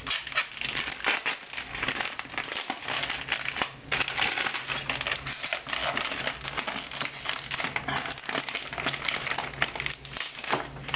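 Thin plastic protective wrap being peeled off a new Apple Wireless Keyboard, crinkling and crackling almost continuously, with brief pauses about four seconds in and near the end.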